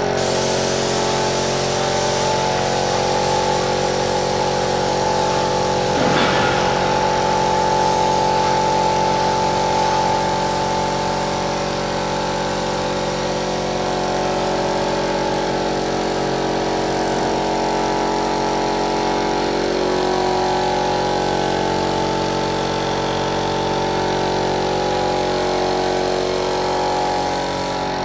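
Air compressor running steadily, feeding a gravity-feed paint spray gun whose compressed-air spray adds a constant hiss.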